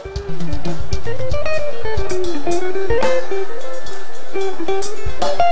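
Live praise band music that comes in loudly just after the start: a guitar playing a winding melody over drum hits and bass.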